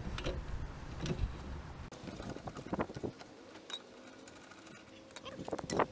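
Light metal clicks and knocks of a wrench and socket extension being handled at a car's crankshaft pulley. They are scattered at first and go quieter past the middle, with one sharp clack near the end.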